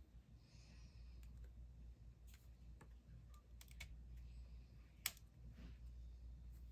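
Faint clicks and light rustling from an Olympus mju-II compact film camera being handled, with one sharper click about five seconds in.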